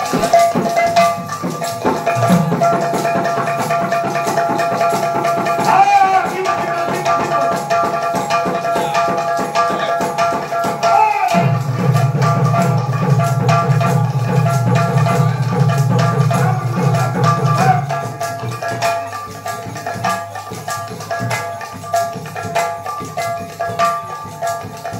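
Folk devotional music led by a double-headed barrel drum played by hand in a quick, driving rhythm over steady held notes. The deep drum strokes are heaviest through the middle and thin out about two-thirds of the way through.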